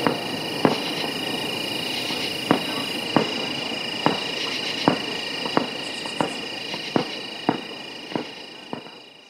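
Distant aerial firework shells bursting: about a dozen sharp reports, one every half second to a second, over a steady high-pitched drone of night insects. The sound fades out near the end.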